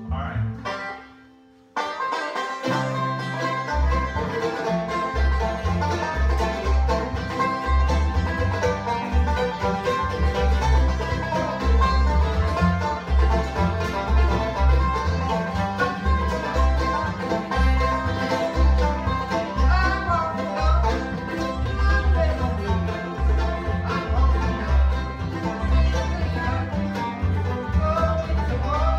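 Bluegrass string band of banjo, mandolin, acoustic guitar and upright bass playing an instrumental passage. After a brief gap the tune starts about two seconds in, and the upright bass joins about four seconds in with steady plucked notes on the beat.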